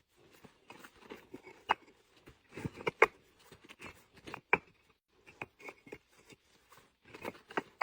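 Bricks being stacked for loading, a sharp clack of brick on brick every second or so with some scraping between.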